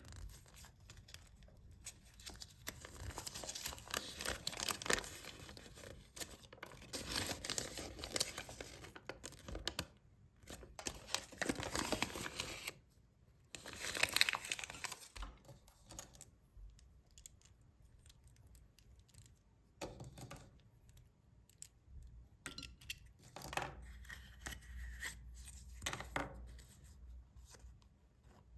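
Foil wrappers of chocolate surprise eggs being torn open and crinkled: dense rustling for the first half with a loud burst near the middle, then sparser short rustles and clicks.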